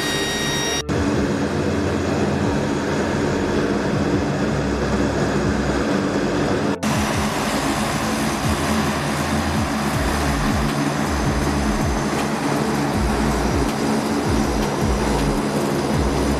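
Rolls-Royce AE 2100 turboprop engines of a KC-130J running on the ground with propellers turning: a steady drone with a constant hum. The sound breaks off for an instant twice, about a second in and about seven seconds in.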